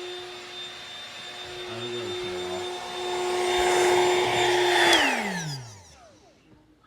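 Built-in electric air pump of an Intex air mattress running with a steady hum, growing louder, then switched off about five seconds in and winding down with a falling pitch.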